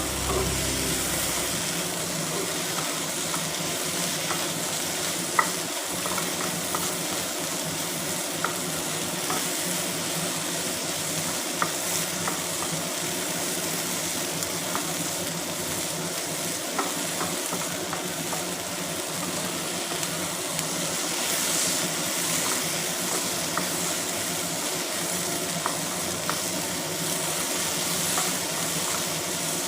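Food sizzling steadily as it fries in an oiled pan, with a few light clicks scattered through.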